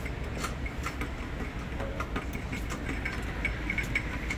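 Outdoor traffic ambience with a steady low rumble, overlaid by light, irregular ticks and clicks.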